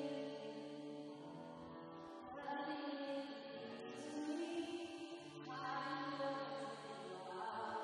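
Slow live worship music: acoustic guitar under long, held singing, moving to a new chord about every two to three seconds.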